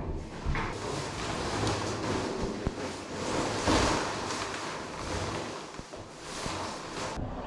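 Strong gusty wind rushing over the microphone, a dense noise that swells and eases in surges.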